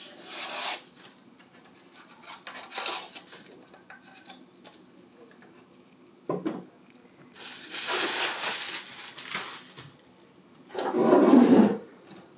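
Foam packing blocks rubbing and squeaking against a clear acrylic display case as they are pulled out, with a single knock about six seconds in. Near the end comes the loudest sound, a scrape of the model's wooden base sliding on a wooden tabletop.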